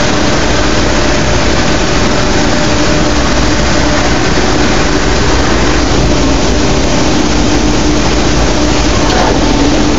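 Strippit FC1250M CNC turret punch press running: a loud, steady machine noise with a constant hum.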